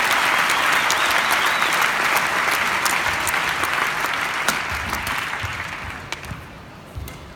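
Large arena crowd applauding a point in a badminton match, dying away over the last couple of seconds, with a few sharp taps of racket on shuttlecock coming through near the end as play resumes.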